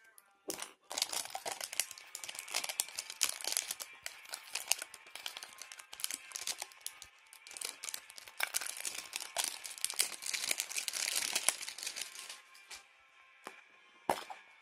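Plastic wrapping on a Poké Ball tin crinkling and tearing as it is unwrapped, a dense crackle lasting about twelve seconds, then quieter with a sharp click near the end.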